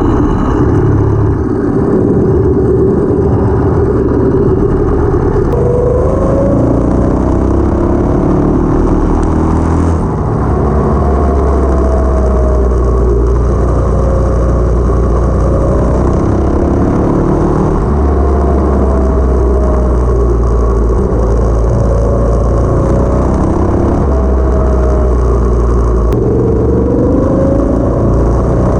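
Go kart's 212cc single-cylinder four-stroke engine with a stage 1 kit running under load while being driven, its revs climbing and dropping several times as the throttle is worked.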